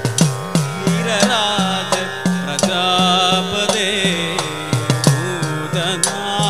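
Idakka, the Kerala hourglass drum, played in quick, regular strokes whose pitch bends up and down. Under it runs a steady drone, with a wavering melody line above.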